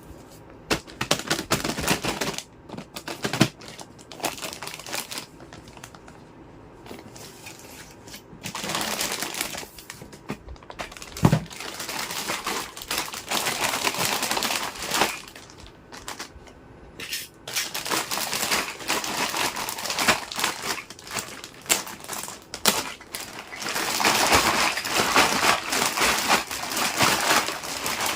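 Miniature plastic toy kitchen pieces and their packaging being handled: plastic wrap crinkling in stretches, with many small clicks and taps of plastic, and one louder knock about eleven seconds in.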